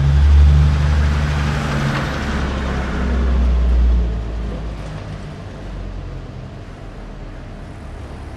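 A motor vehicle's engine running as it passes, a low steady hum with a rush of noise that swells and then fades after about four seconds into a quieter rumble.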